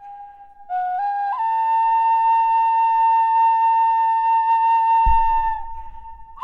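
Slow flute melody: a note enters about a second in, steps up twice and is held for several seconds before fading. A low thump and rumble come in about five seconds in, near the end.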